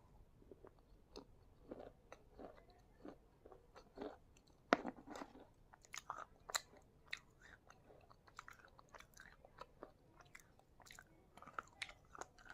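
Slate pencil being bitten and chewed: a run of irregular dry crunches and crackles, the sharpest about four and a half seconds in and again a couple of seconds later.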